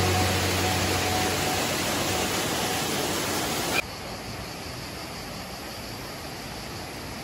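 Steady rush of water from a shallow stream running over rocks. About four seconds in it drops suddenly to a quieter, steady rush.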